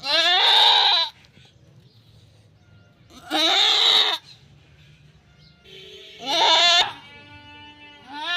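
Goat bleating loudly: three long, wavering bleats about three seconds apart, with a fourth starting near the end.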